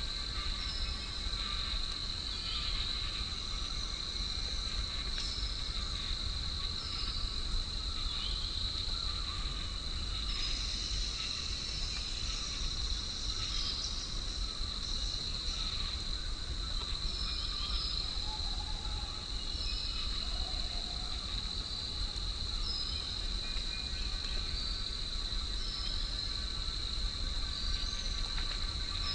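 Forest ambience: insects buzzing in one steady high-pitched drone, with short bird chirps repeating over it and a low rumble of wind underneath.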